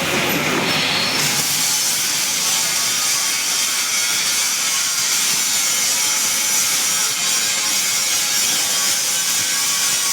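Steady mechanical scraping and rasping noise. About a second in, a lower rumble drops away and the high rasp carries on unchanged.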